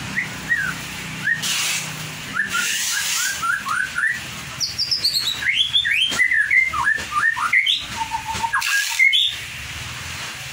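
White-rumped shama singing a fast, varied run of short whistled notes that slide up and down, sparse at first, then dense through the middle, with one held lower note and a last high note near the end.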